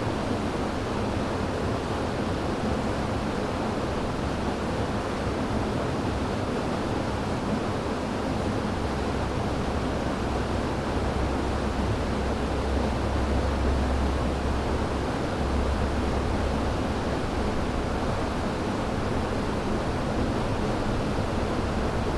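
River water rushing steadily, an even hiss of flowing water. A deep low rumble swells under it for several seconds around the middle.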